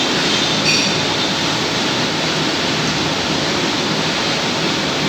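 A lathe running steadily just after being switched on, giving a dense, even mechanical noise with a faint low hum. There is a brief high squeal under a second in.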